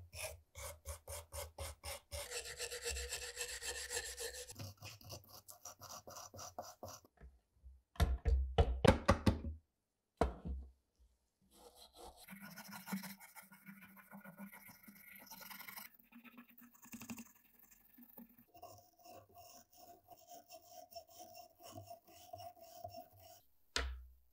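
Small hand wire brush scrubbing loose rust off the rusted steel parts of an old air rifle in quick back-and-forth strokes. The loudest strokes come about eight seconds in, and there is a knock just after them and another near the end.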